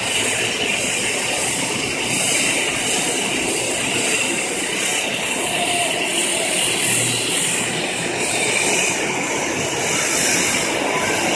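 Jet engines of a Boeing 777 on the runway for takeoff: a steady roar that holds level throughout.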